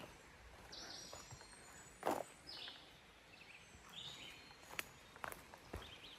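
Quiet footsteps on a leaf-littered forest trail, with scattered clicks and one louder thump about two seconds in. A bird calls four short notes, about a second and a half apart.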